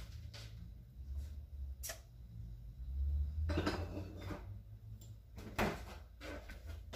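Kitchen handling noise: low thumps and a few scattered clicks and knocks, the sharpest about five and a half seconds in.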